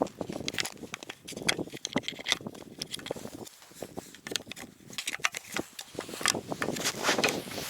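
Irregular crunching and clicking of a person moving about on snow and ice.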